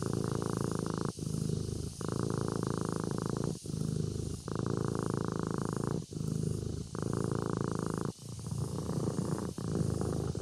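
Sleeping kitten purring: a steady low rumble broken by a brief pause every second or so as it switches between breathing in and out.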